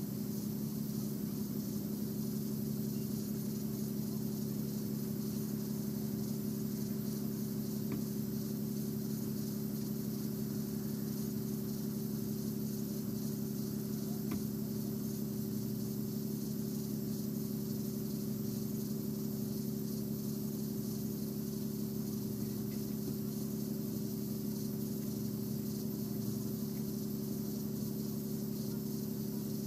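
A vehicle engine idling with a steady low hum, under a constant high chorus of night insects.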